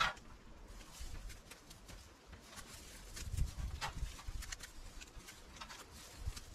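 Manual garden clean-up work: scattered sharp clicks and snaps, the loudest right at the start and another about four seconds in, with a few low thumps about three and a half seconds in.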